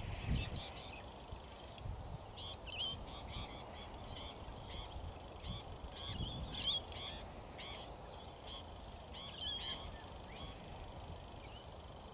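Birds calling in short, quick chirps, several a second and irregularly spaced, over a faint low rumble.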